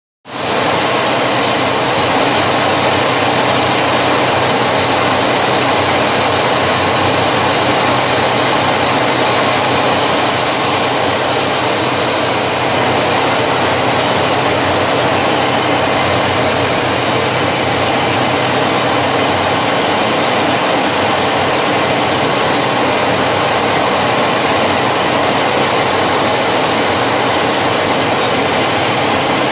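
Jet engines and rushing air heard from inside a Su-27's cockpit in formation flight: a loud, steady hiss with a low hum underneath.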